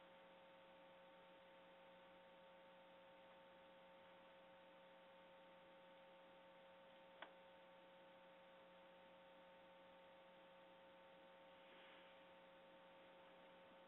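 Near silence: a faint, steady electrical hum with a few constant tones, and a single brief click about seven seconds in.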